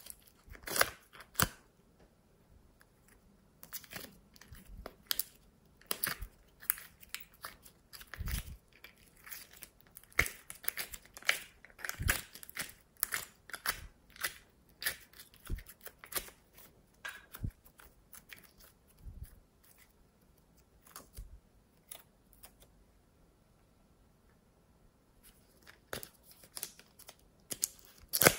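Slime being squeezed out of a plastic cup and kneaded by hand, making irregular sticky clicks and crackles with a short lull near the end. A plastic container being handled gives a sharp crinkle at the very end.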